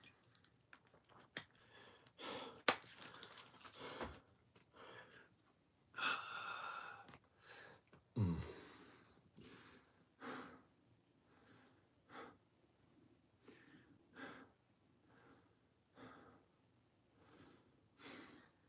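A man breathing hard between exercise sets, a short breath about every second. A few sharp clicks in the first three seconds, and a voiced sigh falling in pitch about eight seconds in.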